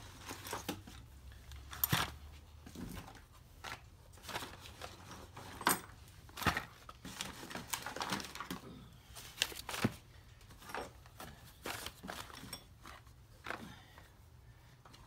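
Small cardboard parts boxes and paper parts envelopes being tossed one after another onto a cloth-covered table: irregular light knocks and taps with some paper rustling.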